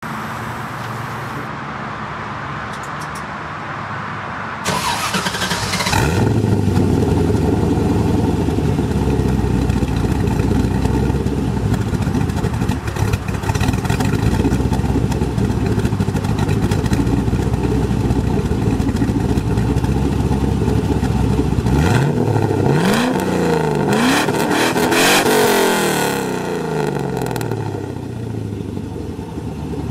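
GM LS-series V8, swapped into a Mercedes 380SL, heard from behind the car at its exhaust tips. It starts and catches about five seconds in and settles into a steady idle. Near the end it is revved several times, the pitch rising and falling, then it drops back to idle.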